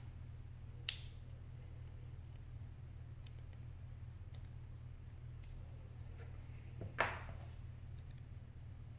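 Small clicks and taps of handling an iPhone 6 display assembly and its small metal bracket with a tool: a sharp click about a second in, a few faint ticks in the middle, and a louder tap about seven seconds in as the display is set down on the mat. A steady low hum lies underneath.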